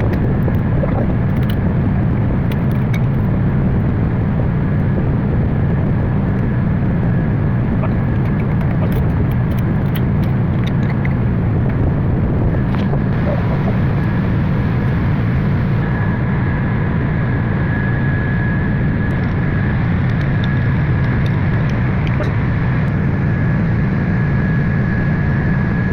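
Lister TS air-cooled diesel engine running steadily, with a faint high whine over the low engine note and a few light ticks.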